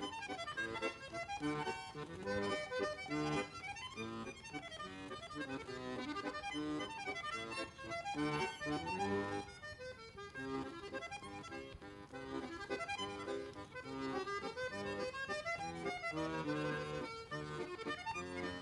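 Background music led by an accordion, playing a melody over chords.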